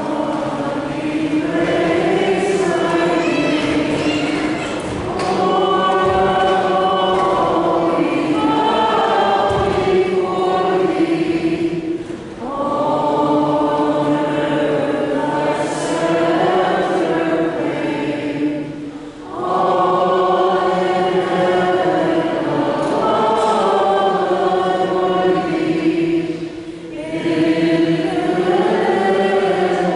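Choir singing a slow hymn in long sustained phrases, with a brief pause between phrases every six or seven seconds.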